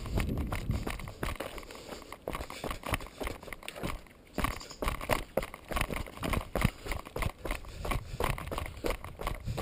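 Bicycle rattling over loose stones and gravel on a rough downhill trail, tyres crunching, in a dense, irregular run of clicks and knocks, with wind rumbling on the microphone. It eases briefly about four seconds in.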